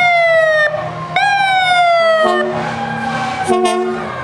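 Fire engine sounding its warning devices: two loud blasts that each start abruptly and slide slightly down in pitch, then a lower, steady tone for about a second and a half. A diesel engine rumbles underneath.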